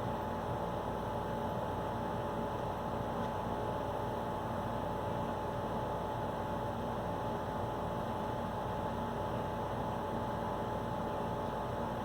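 Steady hum and hiss of room tone, with a couple of faint steady tones and no distinct events.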